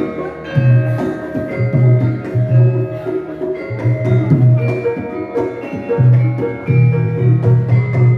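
Javanese gamelan ensemble playing a gending: bronze metallophones and gongs ring in overlapping held notes over a repeated low pulse of drum or gong strokes.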